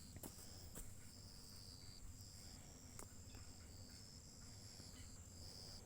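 Faint insect chirping: a short, high chirp repeated at an even pace, roughly every two-thirds of a second, with a few soft clicks.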